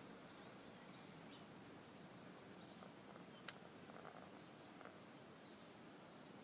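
Sleeping chicken snoring: faint, short, high-pitched squeaks that come irregularly with her breaths, plus one sharp click about three and a half seconds in.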